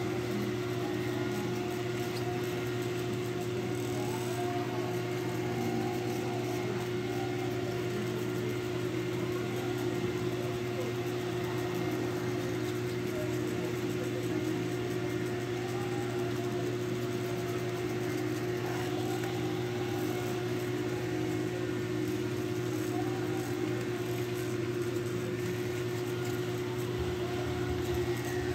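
Steady mechanical hum with a couple of constant low tones, unchanging throughout, like a running fan or similar motor in the room.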